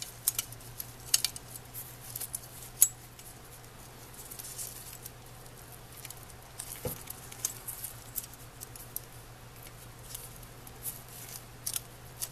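Small clicks, taps and rustles from rubber-gloved hands handling thin wires and small plastic parts, with a few sharp ticks in the first three seconds and a faint steady low hum underneath.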